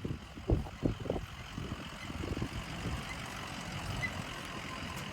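Outdoor ambience dominated by a steady engine rumble, likely a fire truck or other vehicle, with a few sudden low gusts or thumps in the first second or so.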